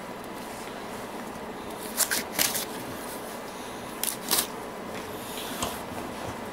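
Gloved hands handling a figure skate: two pairs of short, sharp rustles about two seconds apart.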